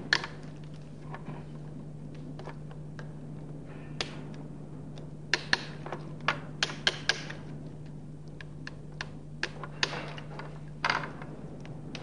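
Irregular sharp metallic clicks and taps of pliers working a split horseshoe clip onto a steel roller chain's connecting link, with the chain links knocking as they are handled. The loudest click comes right at the start, and there is a quick run of clicks around the middle.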